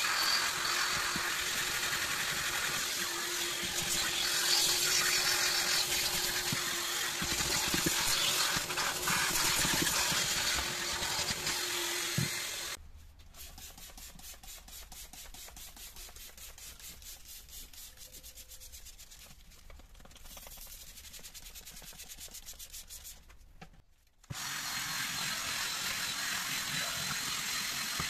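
A vacuum hose running and drawing air as it is worked over the load-floor carpet. It drops out about halfway through to a much quieter stretch of spraying onto the rubber floor mat, and a loud steady sound returns near the end.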